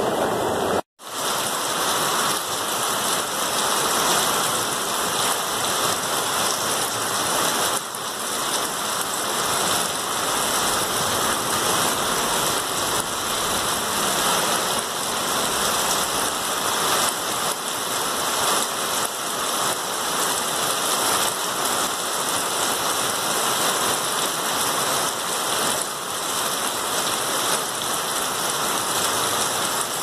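Steady hiss of rain falling, even and unbroken, after a brief dropout about a second in.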